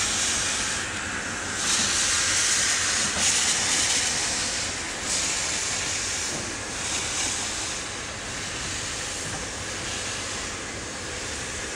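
Hunslet saddle-tank steam locomotive moving off slowly with its cylinder drain cocks open, steam hissing out in repeated surges that ease off toward the end.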